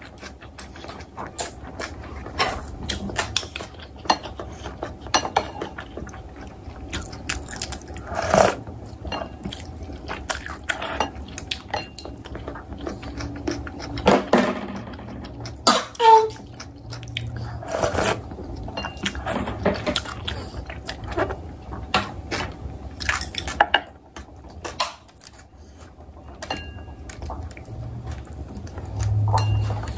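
Close-up eating sounds: a woman chewing and slurping instant ramyeon noodles and broth, with a spoon and chopsticks clicking against the bowl and plate at irregular moments.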